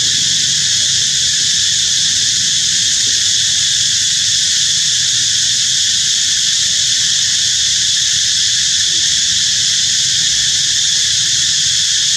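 Steady, loud, high-pitched chorus of insects in the trees, unbroken throughout.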